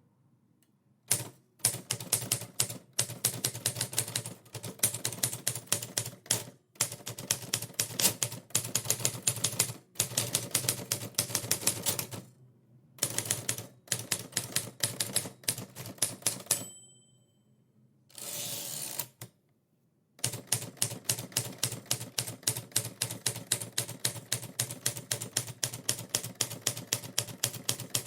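Typewriter keys clacking in quick runs with short pauses. Near the two-thirds mark the margin bell dings once, the carriage is pushed back, and steady typing resumes.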